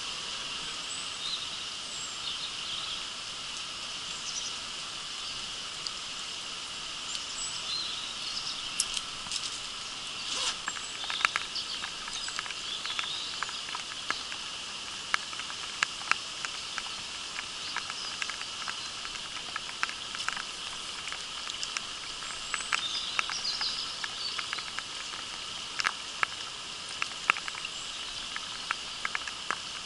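Raindrops tapping irregularly on the camera housing, sharp scattered ticks that become frequent after the first quarter, over the steady high-pitched hiss of a shallow stream.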